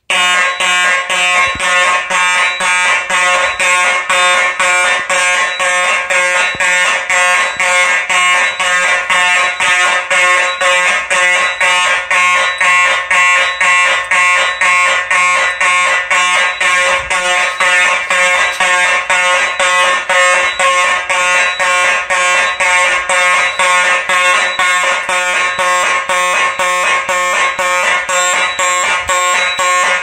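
Simplex fire alarm horn buzzing in march-time pulses, about two beats a second, set off by a System Sensor i3 smoke detector going into alarm.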